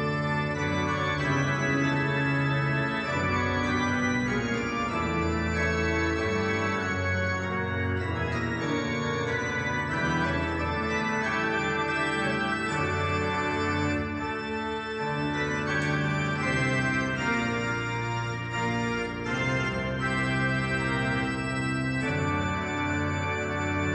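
Organ playing slow, held chords that change every second or so.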